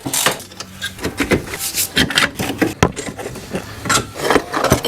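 Irregular knocks and clinks of metal parts and hand tools being handled and set down.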